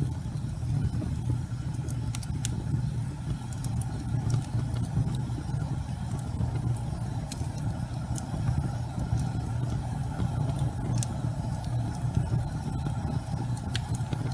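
Wood fire burning in a fireplace: a steady low rumble of the flames with occasional sharp crackles and pops from the burning logs.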